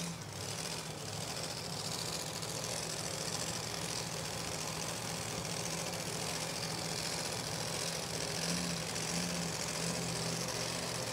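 Supercharged engine of a Chevrolet S10 pulling truck running steadily under load as it drags a weight sled.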